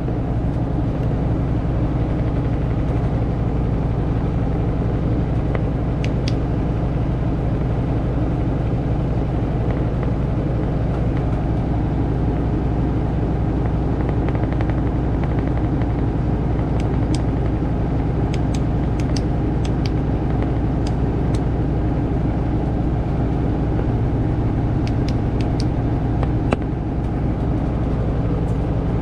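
Samsung washing machine in its spin cycle, the drum spinning with a steady low hum, with a few faint ticks.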